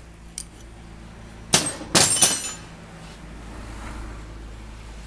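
Sharp metal clanks of wrench and car suspension strut parts being handled: one strike about a second and a half in, then a quick cluster of clatters half a second later, over a steady low hum.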